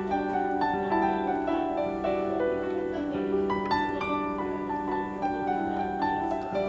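Background music: a steady run of plucked, harp-like notes over held low tones.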